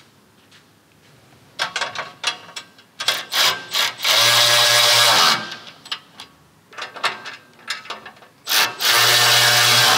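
Cordless electric ratchet driving in bash-plate bolts: it runs twice in loud, steady bursts of about a second each, around four seconds in and again near the end. Between the runs there are light metallic clicks and rattles as the ratchet is fitted onto the bolts.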